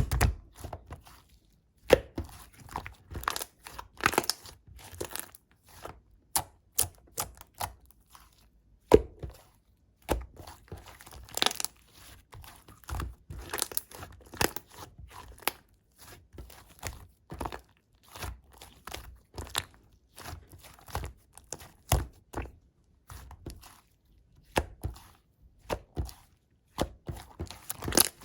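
Pink macaron slime being pressed, squished and pulled by hand, giving irregular crackling clicks and short popping bursts with brief pauses between.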